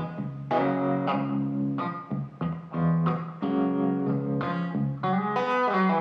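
Background music of plucked guitar, with notes that strike sharply and ring out a few times a second.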